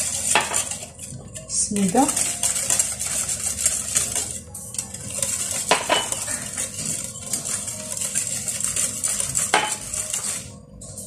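Wire hand whisk beating batter in a glass bowl: a fast, continuous scraping and clinking of the metal wires against the glass, with a few sharper knocks. The whisking stops about ten and a half seconds in.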